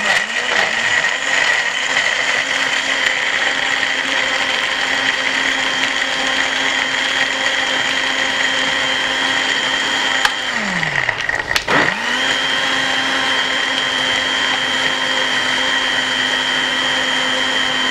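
Countertop electric blender running as it blends a mango milkshake, a steady whine at one pitch. About ten seconds in it winds down and stops with a falling pitch, then starts up again a second or so later and runs steadily.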